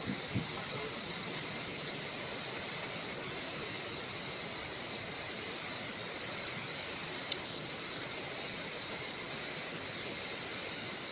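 Steady insect chorus of the forest, an even high buzz that holds throughout, with one faint click about seven seconds in.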